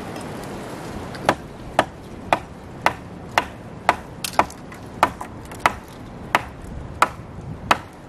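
A hand tool striking wood in a steady series of sharp blows, about two a second, about fourteen in all, starting a little over a second in.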